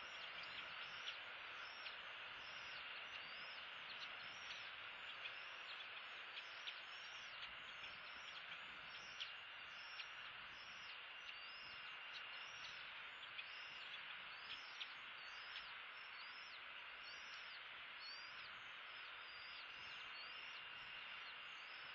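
Faint outdoor ambience: a steady hiss under a constant chorus of quick, high chirps, a couple a second, with a faint steady high whine beneath them.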